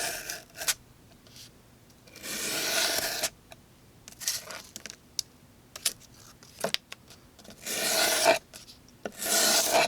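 A CJRB Barranca folding knife's D2 Wharncliffe blade slicing through cardboard in about four drawn cuts, each a rasping scrape of under a second, with a few small clicks and taps between them.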